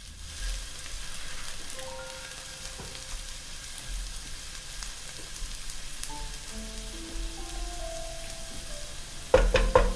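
Sliced red onions sizzling in oil in a nonstick frying pan, a steady hiss as a spatula stirs them. Faint held musical notes sound under it, and a brief louder burst comes near the end.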